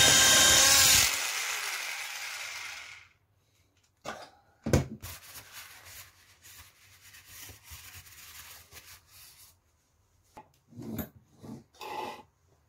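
Tefal Smart hand blender's motor running in cake batter, whining up to speed and then switched off about a second in, dying away over the next two seconds. Then a knock as it is set down, faint rubbing, and a few clunks near the end as a cake pan is handled.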